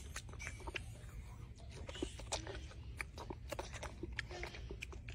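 Golden snub-nosed monkey eating an orange: irregular wet chewing and mouth clicks over a steady low rumble.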